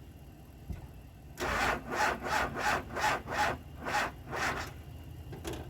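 Starter cranking an engine over in a rhythmic rasping chug, about three strokes a second, without it catching; poor current through loose battery terminals, which smoke under the load.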